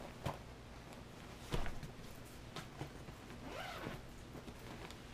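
A packed fabric diaper bag being handled: a zipper being pulled and a few knocks, the loudest about a second and a half in, as the bag is set down.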